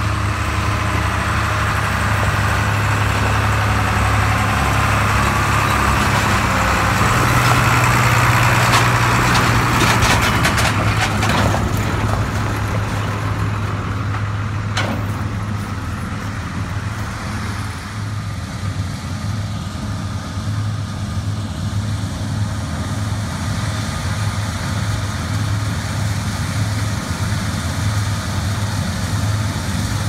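Large farm diesel engine running steadily with a low hum. A few short clicks or rattles come about halfway through.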